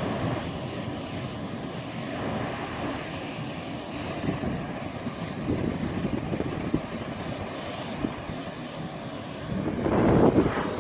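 Ocean surf washing against the shore, with wind buffeting the microphone. A louder wave surges in near the end.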